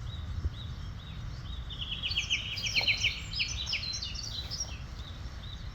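Wild birds singing: a steady series of short repeated chirps, joined about two seconds in by a fast trill and overlapping calls from other birds, over a low steady outdoor rumble.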